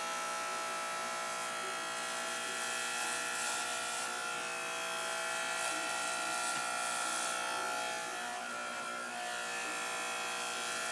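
Electric hair clippers running with a steady buzz as they are run over a child's head, shaving the hair short.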